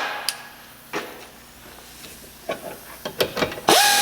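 A few light metallic clicks and knocks of tools on a sway bar link. Near the end a power drill starts with a steady whine, spinning the link nut, which is not tightening up because the ball-joint stud turns with it.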